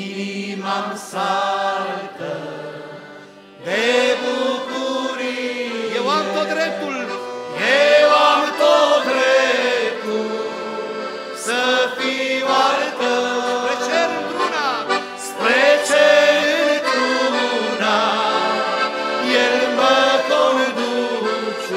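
Male voices singing a Christian hymn in harmony, accompanied by two piano accordions. The music is softer at first and comes in fuller and louder about four seconds in.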